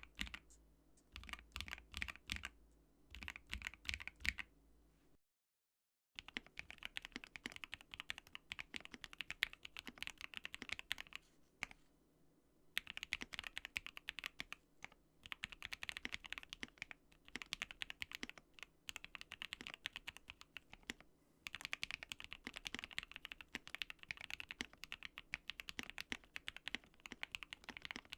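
Typing on a GMMK Pro mechanical keyboard fitted with lubed Gateron Black Ink V2 linear switches on a polycarbonate plate with PE foam: quick runs of keystrokes broken by short pauses. About five seconds in the sound cuts out completely for a second, then denser, faster typing resumes.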